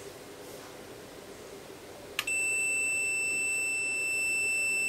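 Multimeter continuity beeper: quiet for about two seconds, then a click and a steady high beep that holds on. The beep signals that the temperature controller's output relay has closed its contacts as the controller calls for heat.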